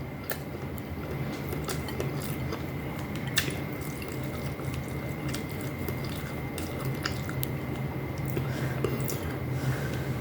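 A person chewing food, with wet mouth sounds and scattered small clicks, over a steady low hum.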